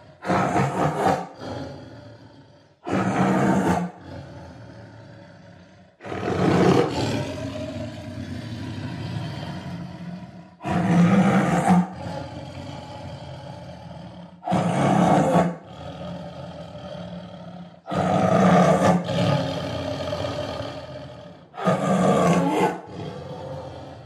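Tiger roaring over and over: seven loud roars, one every three to four seconds, each starting suddenly and fading away.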